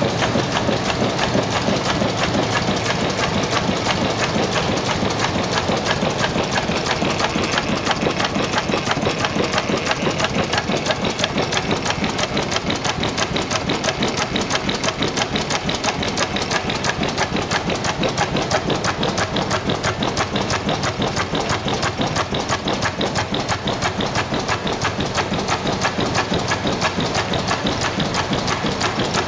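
1904 Deutz E12 stationary gas engine running steadily, with a fast, even mechanical clatter from its moving parts.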